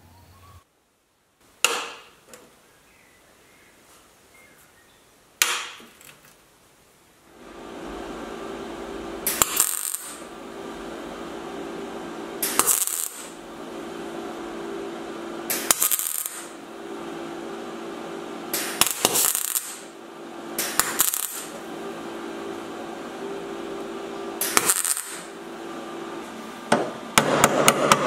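MIG welder setting spot welds on a steel repair panel: about seven short crackling bursts of arc over a steady hum that starts some seven seconds in. Two sharp metal clicks come before it, and a fast run of light hammer taps starts near the end.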